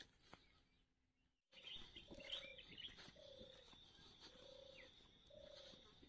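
A short low hooting animal call, repeated about once a second, over a steady high-pitched whine. Both start after a brief near-silent gap early on.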